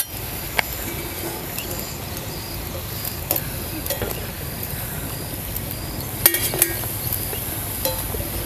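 Puris deep-frying in hot oil in an iron kadhai, a steady sizzle, with a wire-mesh skimmer clinking sharply on metal about half a dozen times as the fried puris are lifted out.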